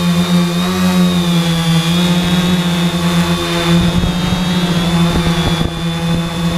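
3D Robotics IRIS quadcopter's electric motors and propellers buzzing steadily in flight at one held pitch that wavers slightly. From about three and a half seconds in, gusty wind buffets the microphone with low rumbling thumps.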